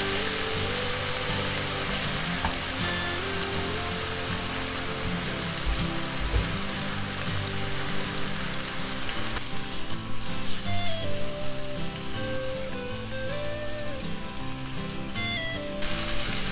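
Marinated chicken breasts sizzling as they fry in oil in a non-stick pan over medium-high heat: a steady frying hiss that drops back for several seconds in the second half and returns near the end. Light background music plays throughout.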